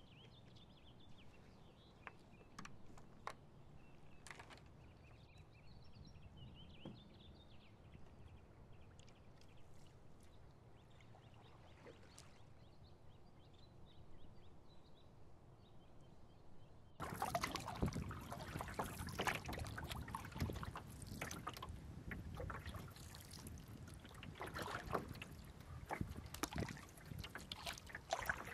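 Faint lakeshore ambience with small birds chirping. About 17 seconds in, the close sound of paddling a canoe starts abruptly and is much louder: water splashing and dripping off the paddle in irregular strokes.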